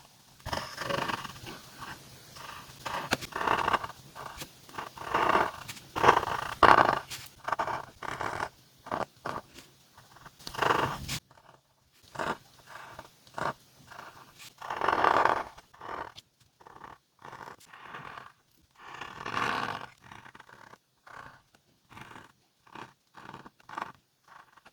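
Calligraphy pen nib scratching across paper while letters are written. The sound comes as a run of irregular strokes, some short and some about a second long, with brief pauses between them.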